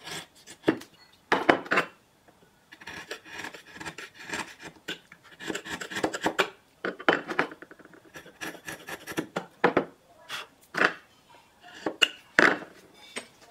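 Hand woodworking on wooden joint parts: irregular knocks, taps and short scraping rubs of wood and hand tools.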